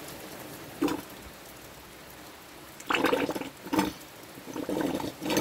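Gear oil glugging in uneven bursts as it is poured from a one-litre bottle into a pump transfer bottle, over the steady hiss of heavy rain.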